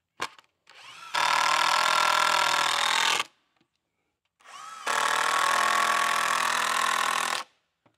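Power drill driving fasteners into a wooden brace: two runs of about two seconds each, each starting slowly and then running at full speed.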